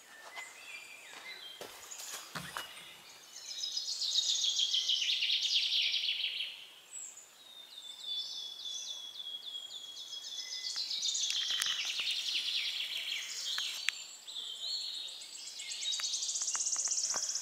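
Songbirds singing in woodland: a series of high trilled song phrases, each a few seconds long. The loudest come about four seconds in and again near the end, and the first one falls in pitch.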